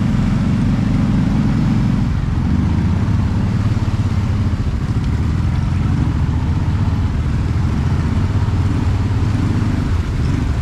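Off-road vehicle's engine running steadily at low revs, close to the microphone.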